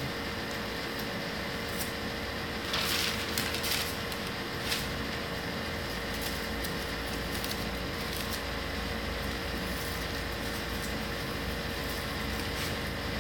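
Paper rustling and crinkling for about a second as a paper flower is handled, with a sharp tap shortly after and a few faint light ticks later, over a steady background hum.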